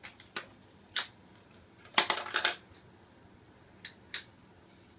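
A few sharp clicks and clacks with a quick rattling cluster about two seconds in, from handling the parts of a disassembled mini ceiling fan; no motor hum or squeak is heard.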